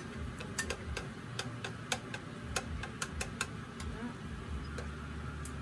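A cooking utensil clicking and scraping against a pan while bananas are stirred in butter over low heat, in irregular sharp taps about two or three a second.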